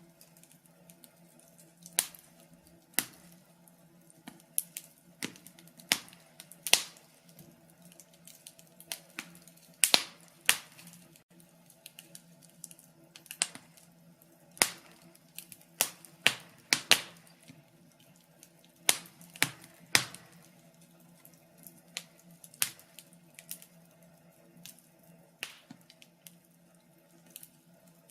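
Wood fire in a fireplace crackling, with irregular sharp pops and snaps from the burning logs, some clustered close together, over a faint steady low hum.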